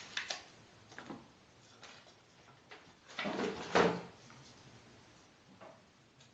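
Thin kindling sticks being laid in a wood stove's firebox, giving a few scattered wooden knocks and clatters. The loudest cluster comes about the middle.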